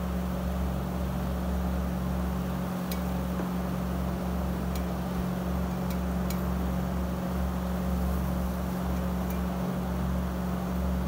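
Steady low background hum with a haze of noise, and a few faint ticks about three, five and six seconds in as fingers work the wire tie off a mixer grinder's coiled power cord.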